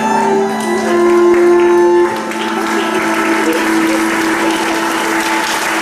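Cello, fiddle and accordion sustaining long held notes at the close of a tune. Audience applause breaks out about two seconds in and carries on over the held chord.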